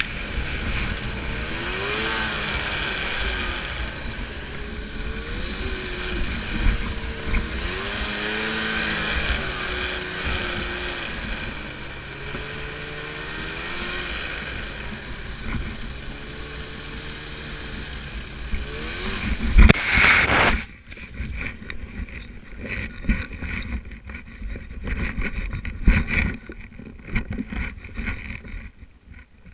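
Snowmobile engine running under load, its pitch rising and falling as the throttle works through deep snow, with a hiss of wind and spraying snow. About 20 seconds in there is a loud burst, then the engine sound drops away, leaving quieter irregular knocks and rustling.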